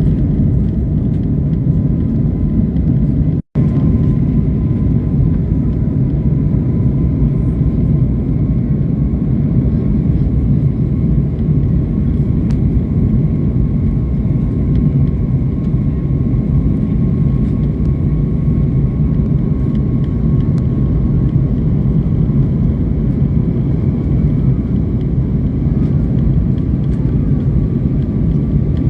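Steady low rumble of an airplane during its landing approach, engines and airflow, with a faint steady whine that comes in after a brief cut about three and a half seconds in.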